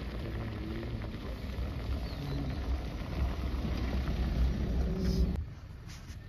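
Safari vehicle driving on a forest dirt track: a steady low engine and road rumble with wind on the microphone. The rumble drops away sharply about five seconds in.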